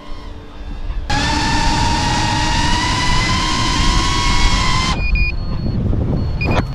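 Brushless motors of an FPV cinewhoop drone whining in flight, the pitch edging up slowly, after a quieter first second. The whine cuts off abruptly about five seconds in as the radio link drops and the motors disarm. Two short high beeps follow: the warning that the control signal was lost.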